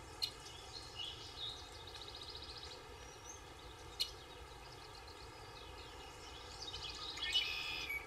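Forest birds chirping and trilling over a faint steady hiss of background noise, with two sharp clicks, one near the start and one halfway through, and a busier burst of calls near the end.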